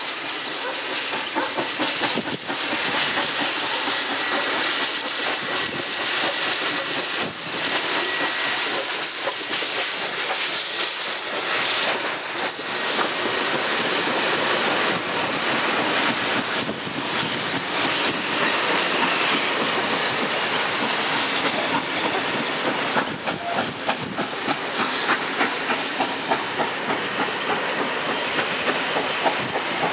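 NSW C36 class 4-6-0 steam locomotive 3642 passing close under steam, with a loud hiss of steam and exhaust. Its train of carriages follows, the wheels clicking rhythmically over the rail joints, most clearly in the last several seconds.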